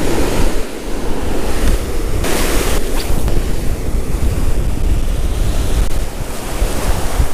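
Ocean surf washing and breaking in foam, with heavy wind rumble on the microphone. A brief louder rush of hiss comes about two seconds in.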